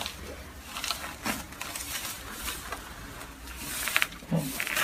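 Chiropractic adjustment: a few short, sharp cracking pops from the patient's joints as they are manipulated, scattered through the stretch, with a brief low voice sound near the end.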